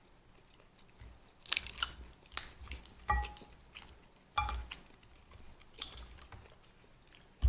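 A person chewing and biting seafood boil food, with irregular crunches and sharp crackles spaced a second or so apart.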